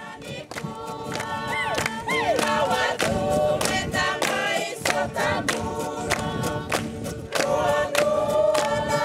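A group of Fijian villagers singing together in harmony, accompanied by acoustic guitar strumming and steady hand-clapping. The singing fades up over the first couple of seconds.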